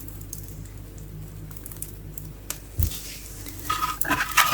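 Firewood being loaded into a fireplace: scattered small clicks over a low hum, a dull thump about three seconds in, then a burst of knocking and clattering near the end, with a short metallic ring.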